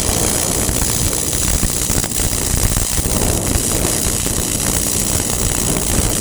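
Welding arc crackling and hissing steadily through one continuous bead, with no break.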